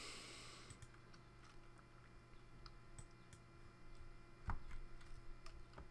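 Faint, scattered computer mouse clicks: a few single clicks at irregular intervals over a low, steady hum.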